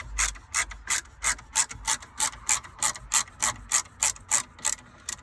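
Ratchet driver clicking steadily, about three clicks a second, as it undoes the screws holding a car dashboard button panel; the clicking stops near the end.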